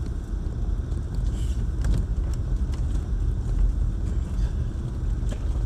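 Steady low rumble inside a Land Rover LR4's cabin as it drives slowly down a rough, snow-covered dirt trail, with a few faint knocks.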